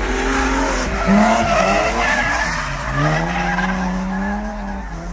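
Race cars drifting: engine notes rising and falling over a continuous screech of sliding tyres, with a long rising rev in the second half.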